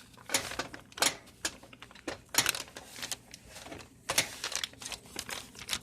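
Handling noise: a string of irregular sharp clicks and light knocks as small objects are moved and set down on a stovetop, with the loudest knocks about a second, two and a half seconds and four seconds in.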